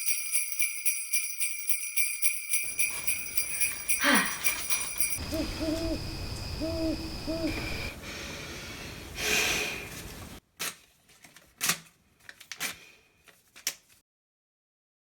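Jingle bells shaking in a steady rhythm. Partway through, a falling whistle-like glide is heard, followed by a handful of short hooting calls like an owl's, then a brief swish and a few sharp knocks.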